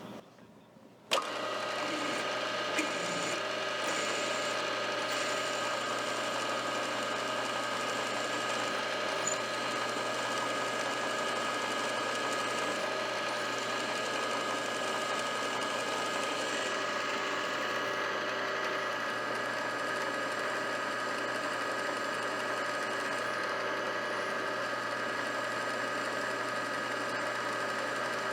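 Milling machine switched on about a second in, then running steadily with an even mechanical whir and a few steady tones.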